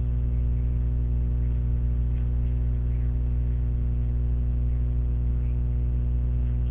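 Steady electrical mains hum with its harmonics, carried on the recording.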